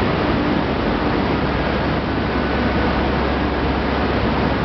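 Corn wet-milling plant machinery running steadily: an even, loud noise with a low steady hum underneath.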